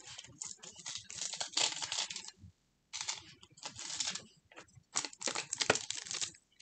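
Adhesive tape being peeled off a jewelry card while paper packaging crinkles, freeing a small chain necklace. The sound comes in irregular tearing and rustling bursts, with a short pause partway through.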